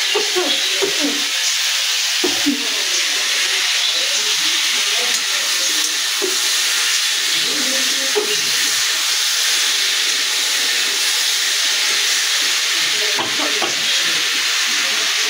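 Curry frying in a pan on the stove: a steady sizzling hiss, with fainter uneven sounds of stirring underneath.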